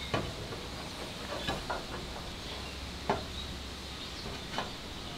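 A few light taps and clicks of a cut aluminum piece being handled and set against an aluminum frame for a test fit, over a low steady hum.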